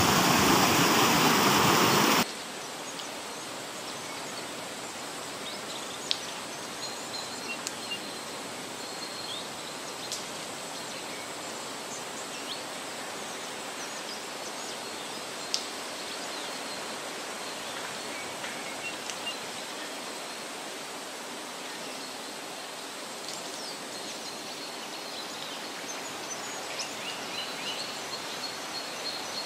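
Rushing river water, a loud steady roar for about the first two seconds that cuts off suddenly. A quieter steady outdoor hiss follows, with a few faint clicks and faint high chirps.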